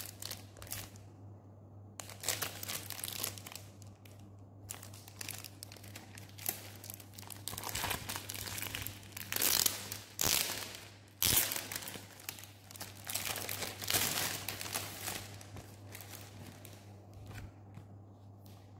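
Clear plastic shrink-wrap on an album package crinkling and tearing in repeated bursts as hands peel it off, loudest about halfway through.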